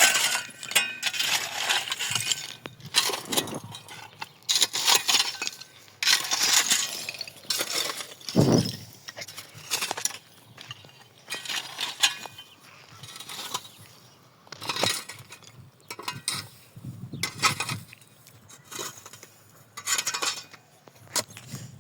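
Irregular clinking and clattering of small hard objects, with a dull thump about eight and a half seconds in.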